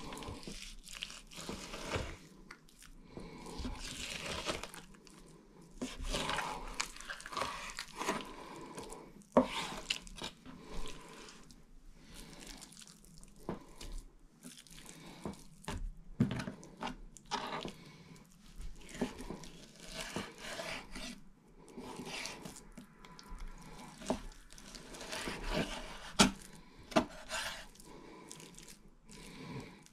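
Kitchen knife slicing raw beef on a wooden chopping board: irregular soft cutting and scraping strokes, with a few sharp knocks on the board.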